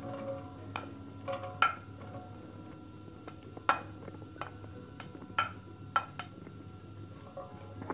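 Sliced onions dropping into a nonstick frying pan, then a few sharp, irregular clinks and knocks of cookware against the pan, each leaving a brief metallic ring.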